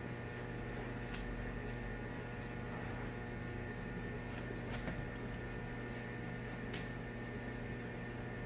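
Steady mechanical hum of several held tones, with a few faint, scattered clicks.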